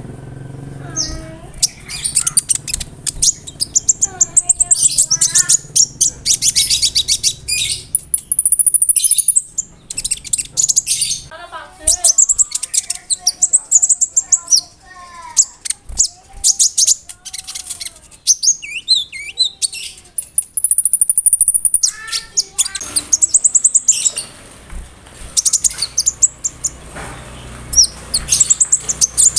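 A konin (kolibri ninja sunbird) singing a loud, busy song full of mimicked calls: rapid high trills, long thin held notes twice, and lower whistled phrases.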